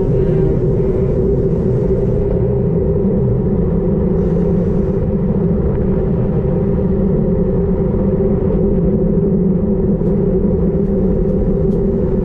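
Wind buffeting the microphone of a bike-mounted GoPro Session on a road bike descending at speed: a steady, loud low rumble with a few faint ticks near the end.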